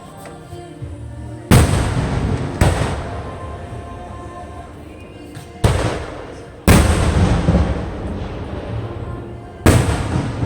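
Aerial fireworks bursting: five loud bangs, roughly one to three seconds apart, each followed by a long fading rumble.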